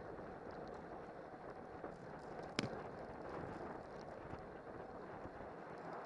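Steady rush of wind over the microphone of a camera mounted on a road bike riding at race speed, with tyre and road noise. One sharp click about two and a half seconds in.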